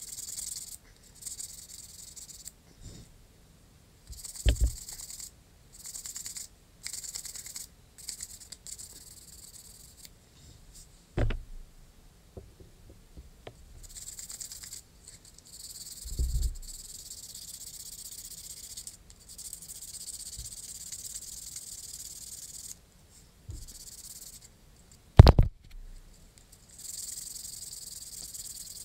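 Sandpaper rubbing on a wooden sword grip by hand: a dry, high hiss in stretches of a second or a few seconds, stopping and starting with each run of strokes. A few short knocks break in, the loudest a few seconds before the end.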